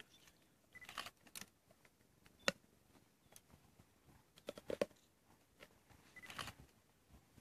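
Faint, irregular cracks and crunches of lions feeding on a warthog carcass, chewing and breaking bone, with a quick cluster of cracks about halfway through and another near the end.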